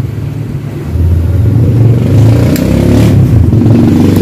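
An engine running steadily nearby, getting louder about a second in. Two sharp clicks from pliers cutting into the plastic fuel pump housing sound over it.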